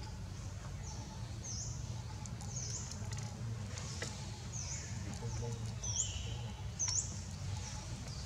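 Short, high-pitched chirps repeating irregularly, about one a second, over a steady low hum.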